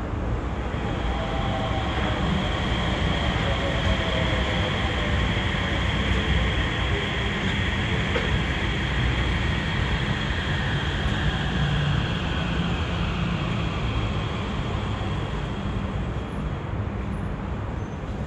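A Yurikamome rubber-tyred automated guideway train running past on the adjacent track: a steady low rumble with a high electric motor whine that fades out near the end.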